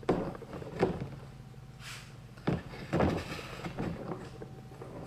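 Handling noises: several knocks and rubbing sounds as a magnet mounting plate is taped and pressed onto a plastic kayak hull, with a short hiss about two seconds in.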